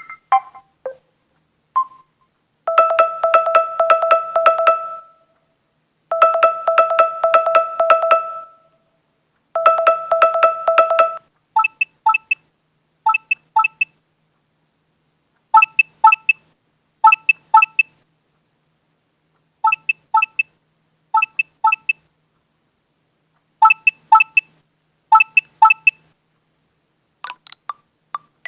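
Nexus 5X smartphone alarm tones playing one after another. First a fast repeating electronic tone comes in three blocks of about two seconds each. Then a sparser tone of short beeps in groups of two or three follows, and another tone starts near the end.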